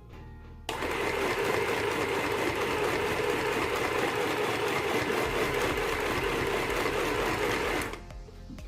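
Mini electric sewing machine running steadily under its own switch rather than the foot pedal. It starts abruptly about a second in and stops suddenly near the end.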